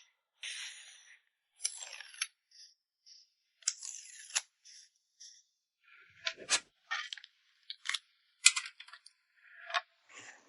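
Photocards and their packaging being handled and packed by hand: a run of short rustles and crinkles broken by sharp clicks and taps, with brief silences between, the sharpest click about eight and a half seconds in.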